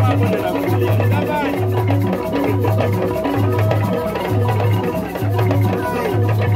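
Traditional drum music for a dance troupe: a deep beat repeating a little faster than once a second, with busy lighter percussion over it.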